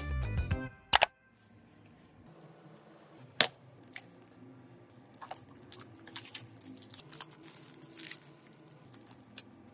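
Background music stops about a second in. Then comes a single sharp click, followed by a scattered run of quiet scraping and crackling sounds from small parts and tools being handled up close.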